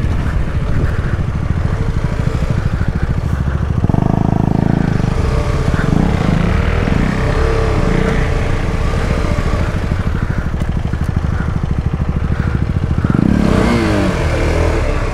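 KTM 250 Adventure's single-cylinder engine running in low gear over a rough dirt track. The revs rise and fall, and drop away near the end.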